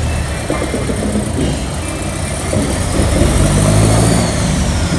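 Motor vehicles passing close by on a street, engines running, with one louder pass about three to four seconds in.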